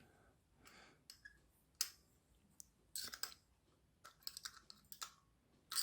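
Irregular small plastic clicks and short scrapes from a cheap LED torch's head being handled and prised apart, with a cluster of quick clicks about three seconds in and again near the end.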